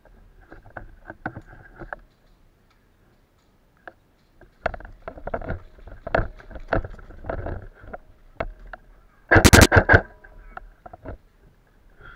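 Running footsteps and gear rustle as a player moves over gravel and through grass, with a gap of about two seconds early on. About nine and a half seconds in comes the loudest sound: a sharp rapid rattle of clicks lasting about half a second.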